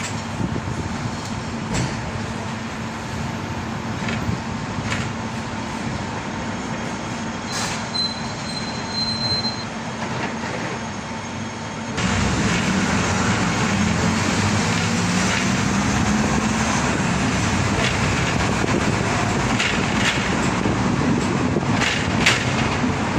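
Hong Kong double-decker electric tram running along the street, heard from inside on the upper deck: a steady rumble of wheels on rails, with a brief high tone about a third of the way in. It grows louder about halfway through, and a few sharp clacks come near the end.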